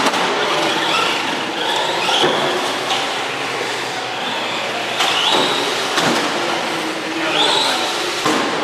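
Traxxas Rally 1/10-scale RC car's electric motor and drivetrain whining, rising in pitch each time it accelerates, three times, over a steady hiss.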